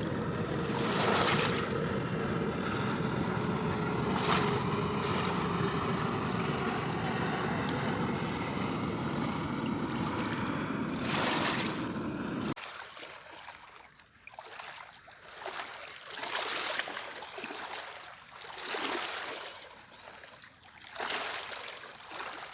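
A steady engine drone over wind and water noise cuts off abruptly about halfway through. After that come waves washing on the shore, swelling and falling back every couple of seconds.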